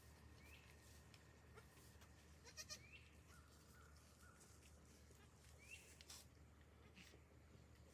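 Faint bleating of newborn goat kids: a few short, high calls a few seconds apart, with light rustling clicks between them.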